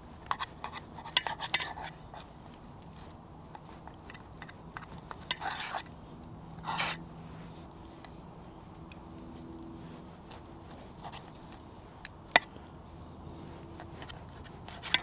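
Knife and fork clinking and scraping on a stainless steel plate while cutting cooked chicken: a flurry of clinks in the first two seconds, two short scrapes around the middle, and one sharp clink near the end.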